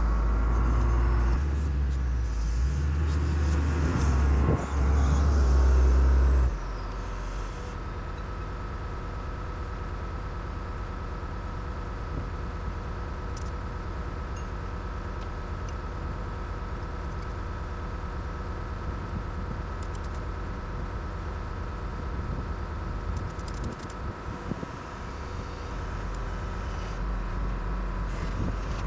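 A vehicle or machine engine running. It gives a loud low rumble that rises and falls in steps for about the first six seconds, then drops abruptly to a steadier, quieter run.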